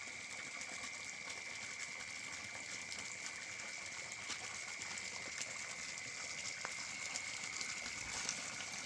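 Spring water running steadily from a spout into a bathing pool, an even rushing sound, with a steady high-pitched tone alongside it.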